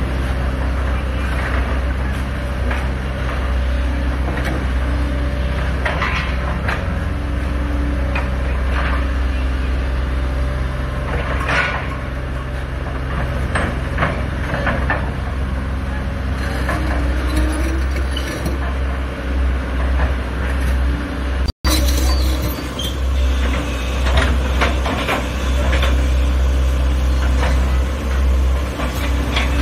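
Diesel engines of tracked hydraulic excavators running steadily under load during demolition, with irregular clattering and crunching of broken concrete and masonry as the buckets pull the building down.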